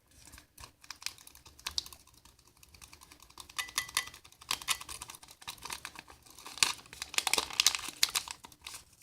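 Irregular small clicks and crackles from handling a food-colour container while adding the colour to the slime mix, thicker about seven to eight seconds in.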